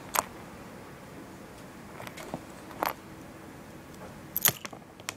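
Handling noise: a few sharp clicks and taps of small hard objects, scattered and irregular, the loudest about four and a half seconds in.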